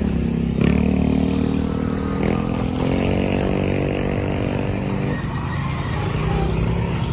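Street traffic, with a motor vehicle's engine running close by. Its steady, pitched note starts abruptly about half a second in and drops away after about five seconds.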